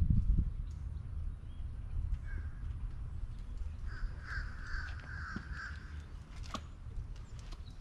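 A bird gives a run of harsh calls lasting about two seconds, starting around four seconds in, over a low steady rumble. A few sharp clicks come near the end.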